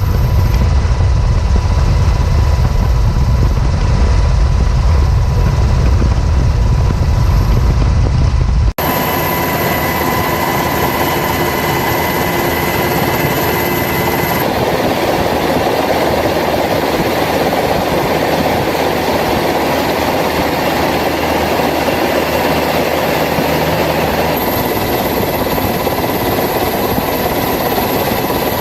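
Steady helicopter engine and rotor noise. A deep rumble cuts off abruptly about nine seconds in and gives way to a hissier sound with a steady high whine.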